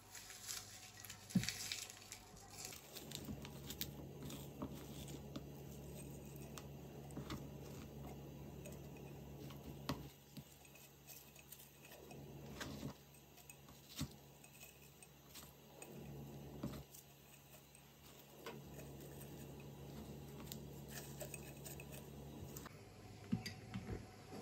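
Faint handling sounds of sliced red onions being pulled apart and packed into a glass jar: soft rustling with scattered light clicks and clinks, over a low steady hum.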